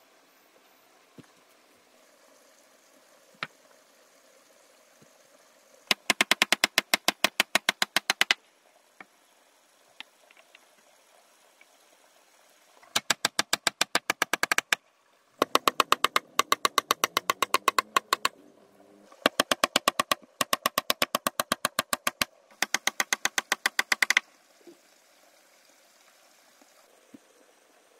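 Hammer driving nails into thick wooden blocks: five runs of rapid, evenly spaced strikes, separated by short pauses, with a few single taps between them.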